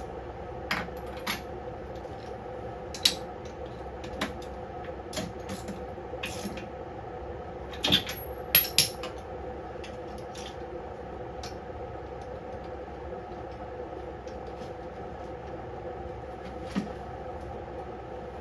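Metal hand tools clinking and knocking in short scattered strikes, the loudest in a cluster about eight seconds in, over a steady background hum.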